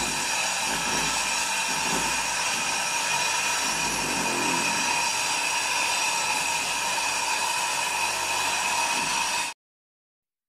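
Power drill running steadily as it bores into a concrete block wall, a motor whine over the grinding of the bit, cutting off suddenly about nine and a half seconds in.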